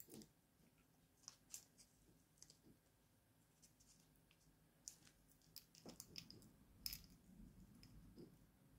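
Faint, irregular small clicks of a metal link bracelet and its end pieces tapping against a watch case while the bracelet is fitted to the lugs, with soft handling noise about six seconds in.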